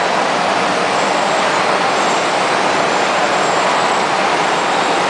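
Nougat cooking and mixing machinery running, a steady, even rushing noise with no distinct beats or strokes.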